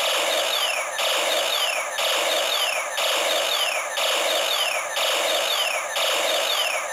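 WowWee Light Strike toy laser-tag blaster firing in its Sonic Strike mode. Its speaker plays a harsh electronic zap with a falling sweep, repeated about once a second, seven shots in all.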